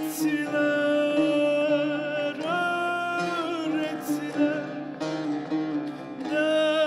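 Bağlama (long-necked Turkish saz) playing a türkü melody, with a man's voice holding long, wavering sung notes over it.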